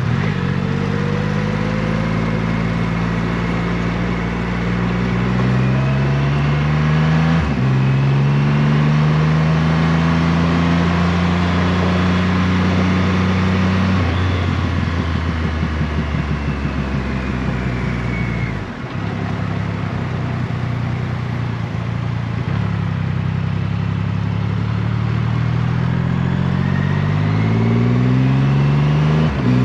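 Triumph Rocket 3 R's 2.5-litre inline-three engine pulling through the gears while being ridden. The revs rise steadily, with a gear change about seven seconds in. Then comes a spell of a lower, pulsing note off the throttle, and near the end the engine pulls up through the revs again.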